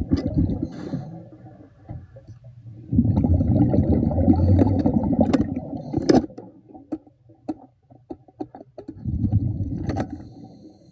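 A diver breathing underwater: three bursts of exhaled air rumbling out as bubbles, the longest about three seconds long, with sharp clicks and taps in the pauses between breaths.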